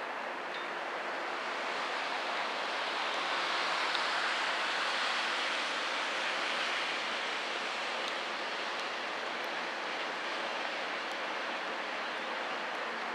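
Steady rushing hiss of pouring rain and moving water that swells for a few seconds around the middle, with a faint low steady hum underneath.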